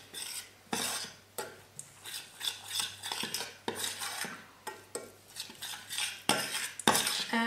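A spoon stirring and scraping a thick mixture of ghee, cocoa powder and almond flour around a small stainless steel saucepan, in irregular strokes about one or two a second, with sharper scrapes against the pan near the end.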